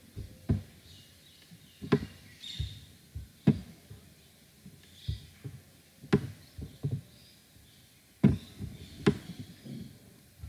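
Irregular sharp knocks and thuds, about a dozen over ten seconds, some in quick pairs, with the loudest around two, six and eight seconds in.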